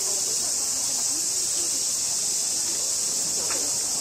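Steady, high-pitched drone of a summer cicada chorus, with faint chatter of people's voices underneath and one short high sound about three and a half seconds in.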